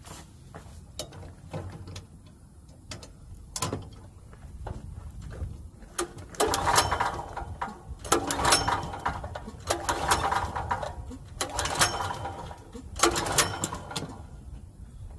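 Recoil starter of a Generac GP5500 generator's single-cylinder engine being pulled five times in a row, each pull a short whirring crank of about a second, with no sign of the engine catching: it fails to start because the fuel tank is bone dry. Small clicks and handling knocks come before the pulls.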